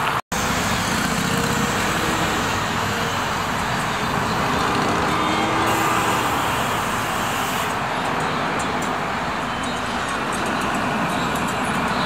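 City road traffic: cars and buses passing through a busy intersection, a steady roar of engines and tyres. The sound drops out for a split second just after the start.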